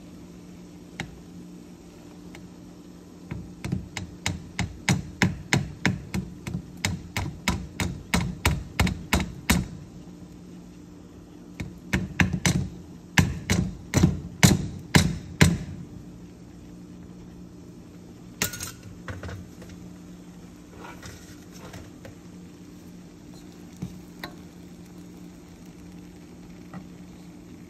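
A plastic colander being knocked against the rim of a cooking pot to shake cooked rice out: two runs of quick knocks, about three to four a second, with a short pause between them, followed by a single sharper click and a few light taps.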